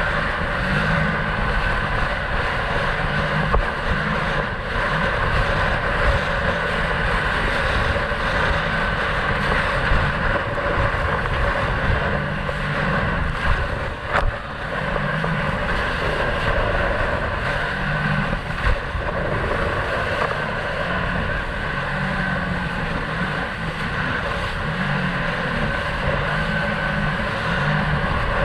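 Sea-Doo jet ski running steadily at speed, its engine and jet drone mixed with wind on the microphone, with a few brief thumps.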